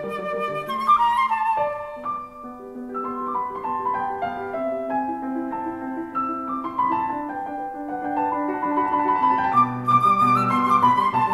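Instrumental music: a slow melody of held notes over an accompaniment.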